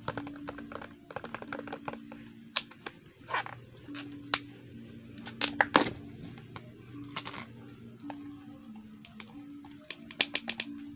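Fingertips pressing and poking crunchy foam-bead slime in a plastic container, giving irregular clicks and crackles, in a quick cluster about ten seconds in. Faint steady low tones run underneath.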